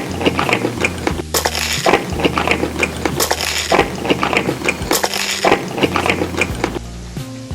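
Crunchy food being chewed close to the microphone, in repeated crackling surges every second or two, over steady low background music.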